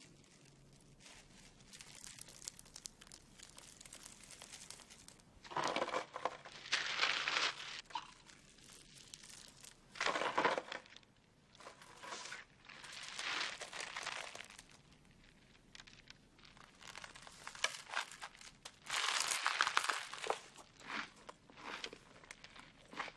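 Plastic wrapping crinkling and dry Cap'n Crunch cereal crunching as a sandwich is put together by hand. The sound comes in several loud bursts of a second or two, with quieter rustling between them.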